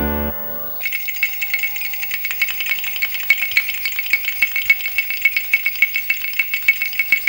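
Plastic baby rattles being shaken: a quick, dense run of rattling clicks with a steady high ringing, starting about a second in as a short keyboard phrase dies away.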